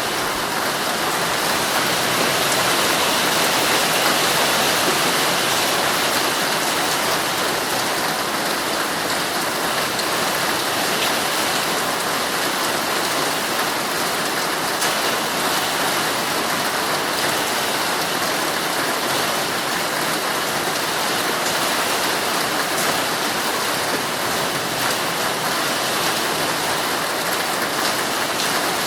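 Heavy rain falling steadily on a tent, a dense even hiss with scattered sharper drop hits.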